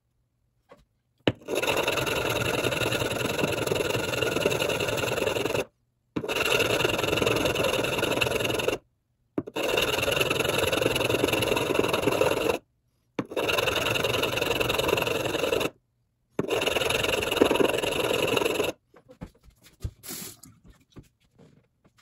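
Metal bottom of a faucet cartridge rubbed back and forth on a wet sharpening stone: steady scraping in five long spells with short breaks, as the corroded sealing surface is polished smooth. A few light clicks follow near the end.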